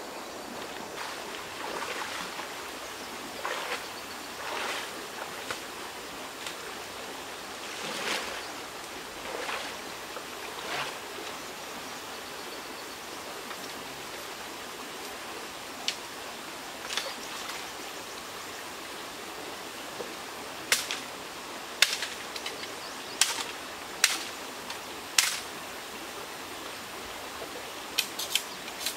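Running stream water under everything, with soft splashing swishes of wading through shallow water in the first half. In the second half a knife blade strikes a bamboo stalk in a series of sharp knocks, about five in quick succession and a few more near the end, cutting the stalk.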